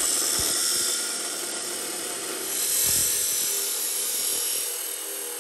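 Hitachi abrasive chop saw cutting through steel bar: the cut-off wheel grinding into the metal with a steady, high-pitched screech that swells about three seconds in.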